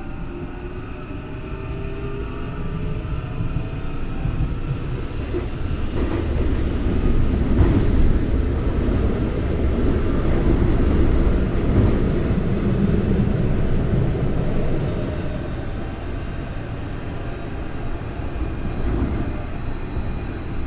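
Tokyo Metro 03 series armature-chopper train heard from inside the car. A rising motor and chopper whine fades out in the first second or two, then the rumble of the wheels on the rails swells to its loudest about halfway through and eases off.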